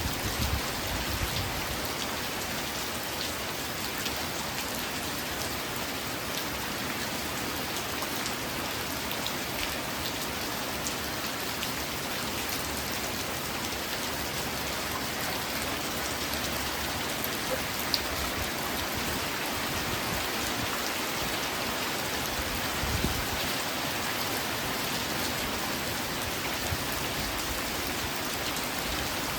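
Steady rain falling on a surface, an even hiss with scattered sharper drop taps.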